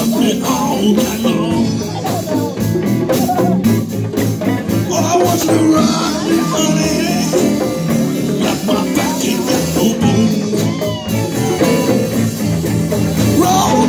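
Live band playing a song on electric guitars, bass guitar, drum kit and congas.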